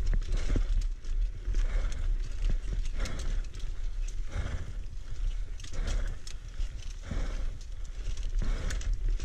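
Single-speed mountain bike ridden along a dirt singletrack, heard over a steady low rumble, with scattered clicks and rattles. A breathy rhythmic sound repeats about every second and a quarter.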